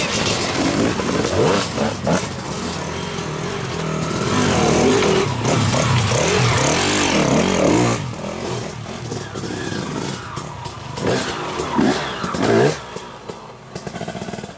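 Enduro dirt-bike engines revving hard as bikes pull away, then a single dirt bike revving up and down in short bursts as it rides a trail, with a few sharp rises in revs near the end.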